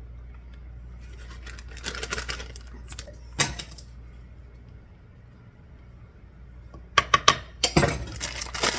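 Kitchen handling sounds of packaging and dishware: scattered crinkles and a sharp click, then a quick run of sharp crinkling and clattering near the end.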